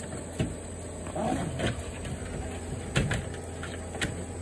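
Hard plastic kiddie pool knocking and scraping as a German Shepherd bites its rim and drags it over the ground: several sharp knocks, the loudest about three seconds in.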